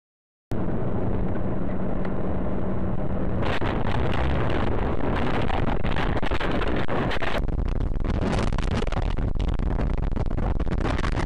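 A vehicle's engine and road noise picked up by an in-car dashcam microphone: a loud, steady rumble with a rough crackle over it. It cuts in abruptly about half a second in and changes in tone twice, at cuts between clips.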